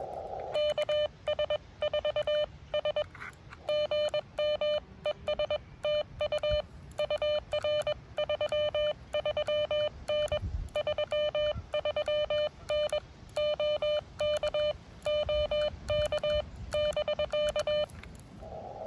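Morse code sent from a ham radio transceiver and heard as its sidetone: one steady mid-pitched beep keyed on and off in dots and dashes for about seventeen seconds. The receiver's narrow-filtered hiss is muted while the operator sends and comes back near the end.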